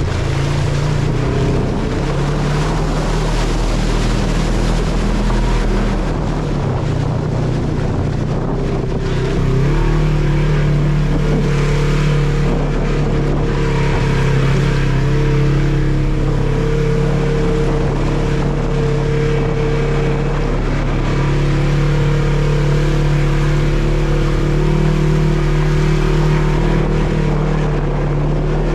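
Polaris RZR 1000 side-by-side's twin-cylinder engine running under way on a trail, heard from on board, holding a fairly even pitch with small shifts and a slight rise in loudness about ten seconds in.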